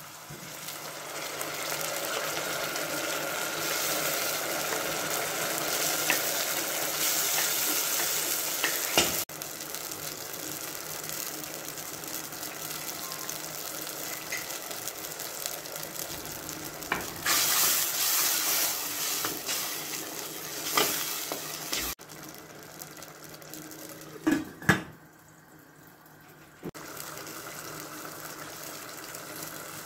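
Chopped tomatoes hitting hot oil in a stainless-steel saucepan and sizzling, loudest for the first several seconds, then frying more softly as the sauce cooks. Two sharp knocks come about three-quarters of the way through.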